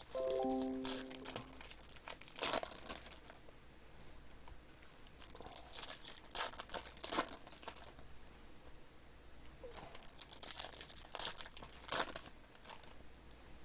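Trading-card pack wrappers crinkling and tearing as packs are opened by hand, in irregular bursts. A brief cluster of steady tones sounds about a second in.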